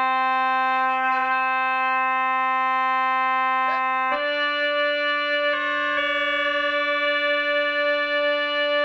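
Henry Willis pipe organ sounding a long sustained note. About four seconds in it steps to a slightly higher note, which takes on a slow, regular waver about halfway through.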